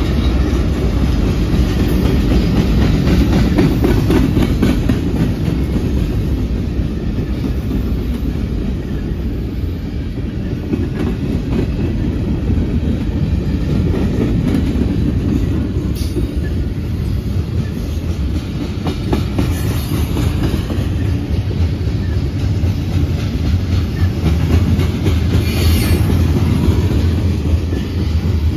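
Freight cars (covered hoppers, a tank car, a boxcar) rolling past close by. Their steel wheels make a steady low rumble with clickety-clack over the rail joints.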